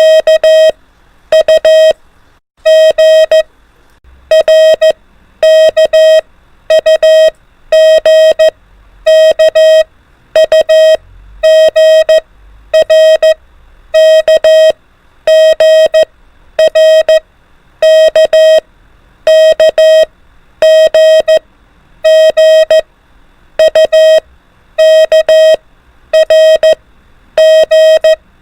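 Morse code practice tone sent at about 24 words per minute: one steady beep keyed into short dots and longer dashes, forming letters about one a second with short gaps between them.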